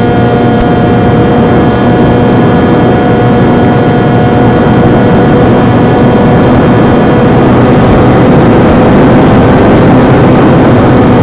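Electric motor and propeller of a Versa Wing RC flying wing running at steady throttle, a loud, even whine. Its pitch drops slightly near the end as the throttle eases.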